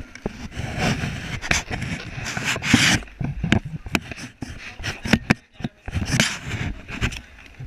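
Clothing rubbing and brushing against a chest-mounted GoPro as the child moves, irregular rustles and scrapes broken by many sharp knocks and bumps on the camera housing.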